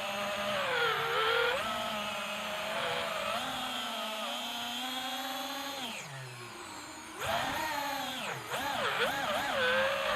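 The brushless motors of an FPV freestyle quadcopter whine, their pitch rising and falling with the throttle. About six seconds in the throttle drops off briefly, then punches back in with quick swings in pitch.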